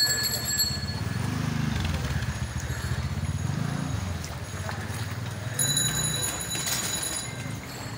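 Cycle-rickshaw bells ringing, briefly at the start and again for about a second and a half near the end, over a steady low sloshing of rickshaw wheels and feet wading through shallow floodwater.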